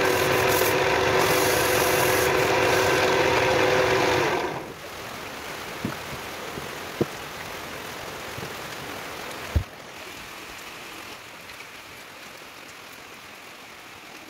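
Wood lathe running steadily with a motor hum, sandpaper rubbing on the spinning wooden leg, until the lathe is switched off about four seconds in and the hum dies away. A few knocks follow, the loudest near the ten-second mark, over a faint steady hiss.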